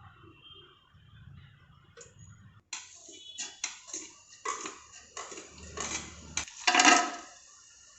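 Kitchen utensils and cookware being handled: after a quiet start, a run of clatters and scrapes that grows louder, the loudest near the end.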